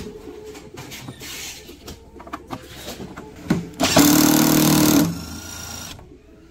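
A cordless drill-driver whirs for about a second, about four seconds in, driving a screw on the rowing machine's water-tank frame, and then winds down. Before it come light clicks and knocks from handling tools against the plastic tank.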